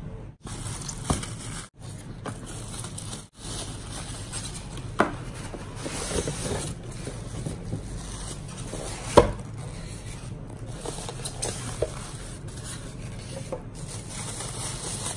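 Unboxing handling noise: a plastic-wrapped waffle maker is pulled out of polystyrene foam packing inserts, with plastic rustling, foam rubbing and scraping, and scattered light knocks. The sharpest knock comes about nine seconds in.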